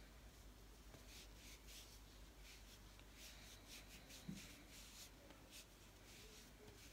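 Faint rubbing strokes of a soft pad wiping makeup remover across the back of a hand, a string of short soft scrapes. One brief low sound about four seconds in.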